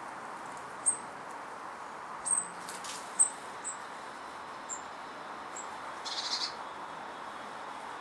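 Small garden birds calling: a scatter of short, very high-pitched chirps, then a brief rapid chatter of repeated notes about six seconds in, over a steady background hiss.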